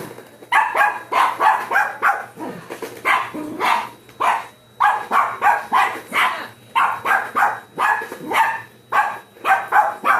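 Dog barking over and over in quick runs with short pauses, worked up at a remote-control toy car.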